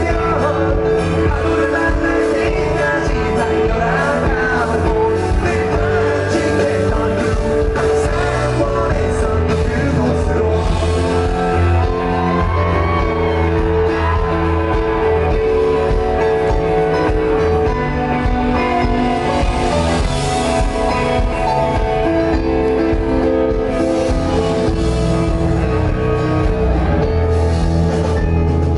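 A rock band playing live with a singer, steady and loud throughout.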